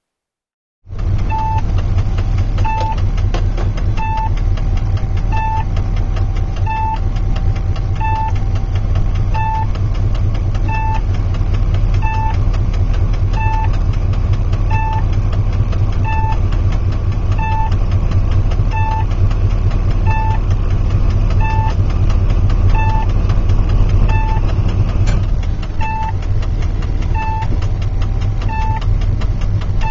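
Heard from inside the driver's cab, a BB 67000-family diesel locomotive's engine runs steadily with a deep rumble during shunting. A short cab beep repeats evenly about every 1.3 seconds. The sound starts suddenly about a second in.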